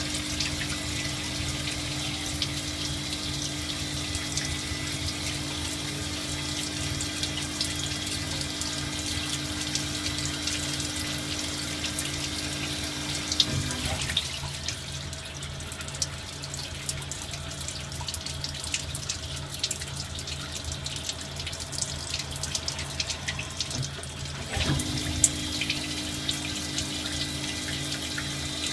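Compound automatic lathe turning small-diameter parts: a steady machine hum over a running flow of coolant with crackling chips. The hum drops out about halfway through for around ten seconds and then starts again, while the coolant flow keeps on.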